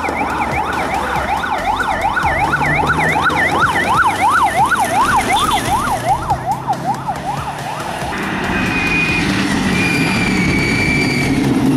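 Electronic siren yelping, its pitch sweeping rapidly up and down about two to three times a second. It slows and stops about six or seven seconds in, and a steady vehicle noise follows.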